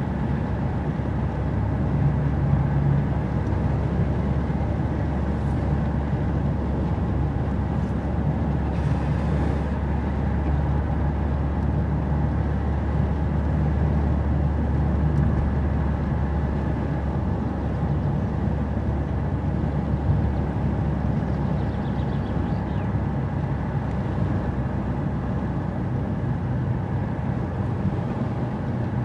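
Car driving along: a steady low engine hum over constant tyre and road rumble, the engine note shifting slightly in pitch.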